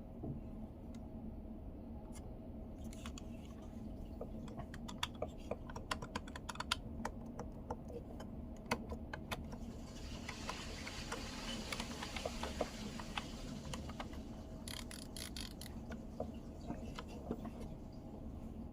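Small plastic clicks from a Mazda commander control knob and its parts being handled and worked. The clicks come in irregular runs, with a quick flurry near the end and a stretch of hiss partway through.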